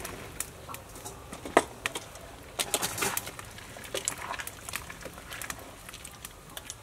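A pot lid lifted and a spatula stirring chunks of eggplant and beef in a large aluminium pot, with scattered knocks and scrapes against the pot, the loudest about a second and a half in.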